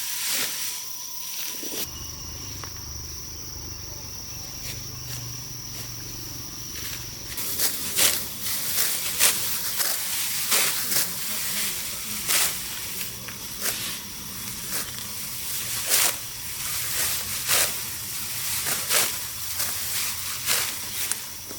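An insect drones steadily on one high note for the first seven seconds or so, then stops. Over and after it come irregular short rasping swishes of dry rice plants being harvested, roughly one a second.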